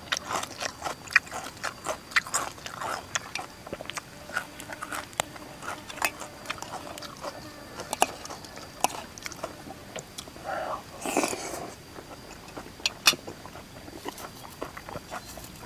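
Close-miked eating: crisp crunching bites and chewing of raw green vegetable stems, many sharp irregular crunches, with one longer, louder noisy stretch about eleven seconds in.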